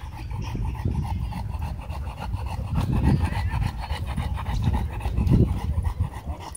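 Belgian Malinois panting in a rasping rhythm through a leather agitation muzzle, over a steady low rumble.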